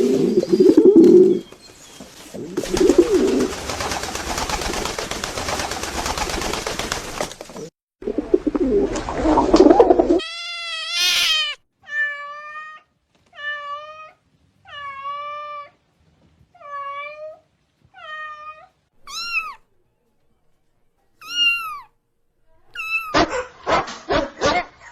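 A cat meowing again and again, about one meow a second, through the second half. Before that come several seconds of noisy, low rustling and breathy sound from an unclear source.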